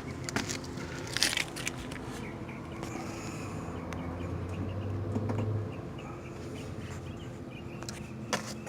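Scattered clicks and rustles of handling over a steady low hum, with a louder low drone for a second or two about four seconds in.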